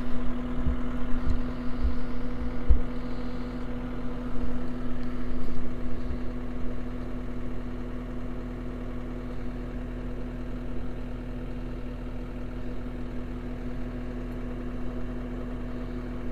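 John Deere 333G skid steer with a mulcher head running steadily, a constant hum with a steady tone, with a few low thumps in the first three seconds.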